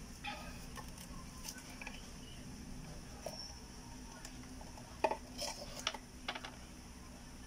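Small plastic clicks and rattles of refrigerator inverter-board wiring connectors being handled and plugged in, with a cluster of sharper clicks about five seconds in. A steady low hum runs underneath.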